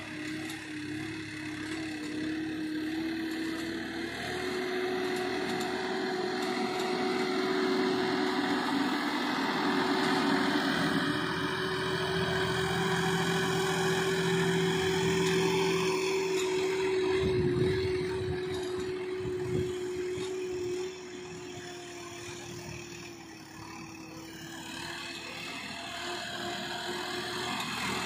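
Swaraj 969 FE tractor engine running steadily at about 1300 RPM in first gear while pulling a laser land leveller. The engine gets louder as it comes near, drops suddenly about 21 seconds in, then builds again near the end.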